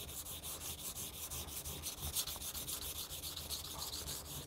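Masakage Japanese kitchen knife being sharpened on a whetstone: quick, even back-and-forth strokes of the steel bevel scraping across the stone. The whole primary bevel is being worked, with pressure up toward the shinogi line. The strokes stop just before the end.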